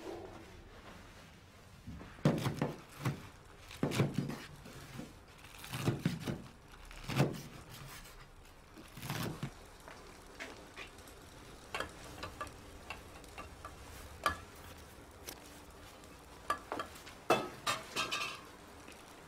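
Knocks and clatter of pots and kitchen utensils being handled, heaviest in the first half, then lighter scattered clicks with a short cluster of sharper ones near the end.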